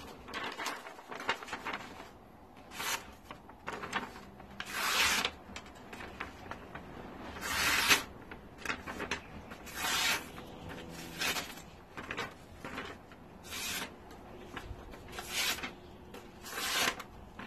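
A sheet of paper being sliced by a sharp high-carbon steel knife blade: a string of short swishing cuts, one every second or two, as an edge-sharpness test.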